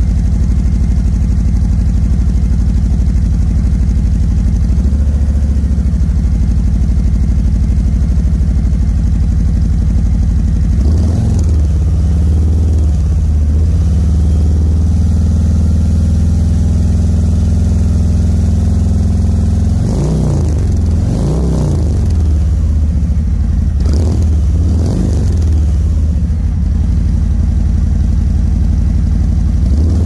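Harley-Davidson Electra Glide Standard's Milwaukee-Eight 107 V-twin idling loudly through Vance & Hines Torquer 450 slip-on mufflers. The throttle is blipped once about a third of the way in, several times in quick succession about two-thirds through, and once more near the end.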